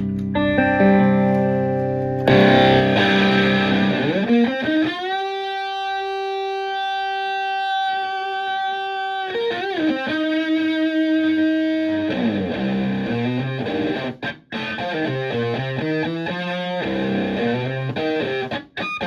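Electric guitar (Stratocaster) played through a Tone Bender MkI-style fuzz pedal into a Twin Reverb-type amp: chords, then a bent note rising into a long sustained fuzzed note, a second bend and held note, and a quick riff of single notes near the end with two short breaks.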